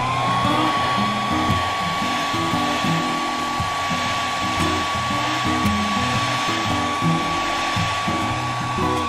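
Hand-held hair dryer blowing hot air steadily onto an iPad Air's cracked glass to soften the adhesive, a steady rush of air with a constant high whine from its motor.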